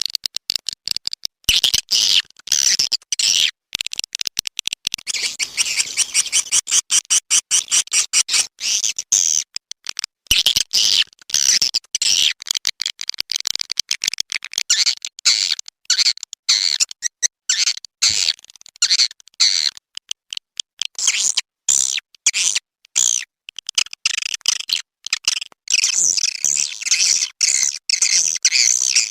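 Swiftlet lure call track: a dense, rapid stream of high chirping and twittering swiftlet calls, starting and stopping many times a second, of the kind played to draw swiftlets into a nesting house.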